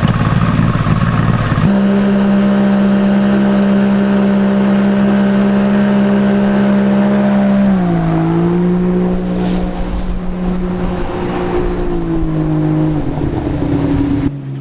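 Engine running at steady speed, easing down in pitch about eight seconds in and again near the end as the throttle comes off.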